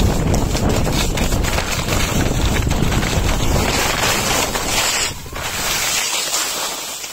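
Skis or snowboard scraping down a hard, icy slope, a rough rushing scrape full of small clicks and chatter, with wind buffeting the microphone. The low rumble drops away about five seconds in and the scraping fades near the end as the rider slows.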